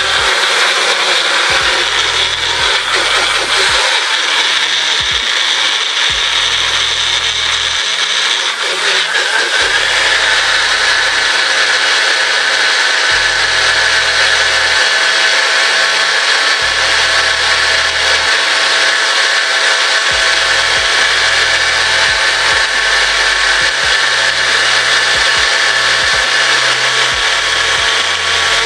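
Electric blender running steadily at full speed, blending cucumber, celery, herbs and a little water into a green smoothie. Its sound changes slightly about nine seconds in.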